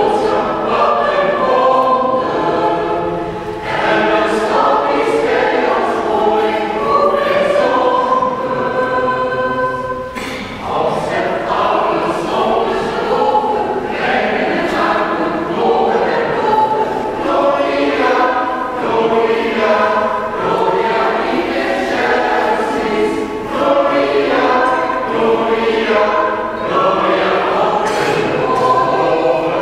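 Church choir singing in held notes, with short pauses between phrases about three and ten seconds in.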